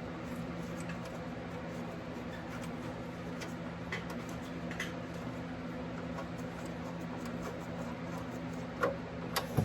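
Faint scattered clicks and taps of a socket wrench working the oil drain plug out of a 7.3 Powerstroke's oil pan, over a steady low hum. There are a few sharper clicks near the end.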